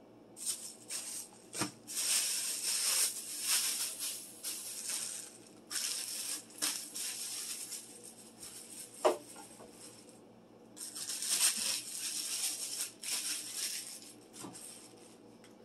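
Plastic rustling and crinkling in three long stretches as items are handled, with a few sharp knocks of things being set down in a kitchen cabinet.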